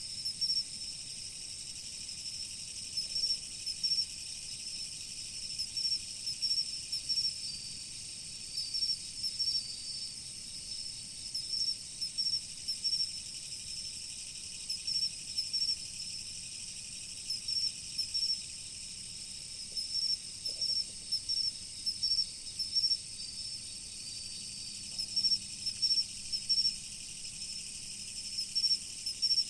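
Autumn insects (crickets) singing: a steady high-pitched trill with louder chirps repeating in short clusters every second or two. Beneath them is a faint low rush of flowing river water.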